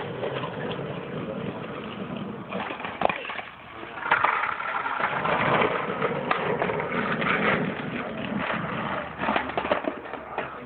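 Skateboard wheels rolling over rough asphalt, a steady rumble that gets louder about four seconds in and holds for several seconds. A sharp clack of the board sounds a little before that, with a few more clacks near the end.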